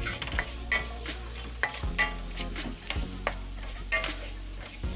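A metal spoon scraping and clanking irregularly against an aluminium wok as a ground mixture is stir-fried, over a steady frying sizzle. A few harder knocks of the spoon on the wok stand out, about a second in, at two seconds and near four seconds.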